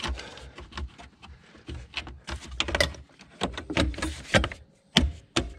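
Plastic engine cover of a Mercedes-Benz ML350 being set onto the engine and pressed down into its mounts: a run of short knocks and clicks, coming in clusters from a little past two seconds in.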